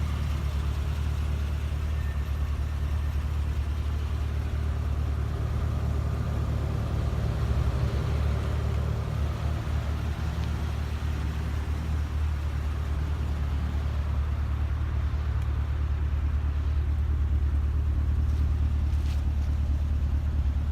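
A Holden Commodore SS V's V8 engine idling steadily, a low, even rumble through its aftermarket XForce exhaust.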